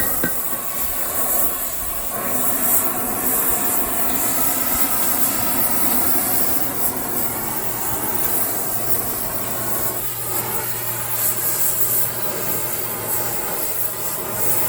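Blacksmith's forge running with a steady rushing roar, the anvil hammering having just stopped.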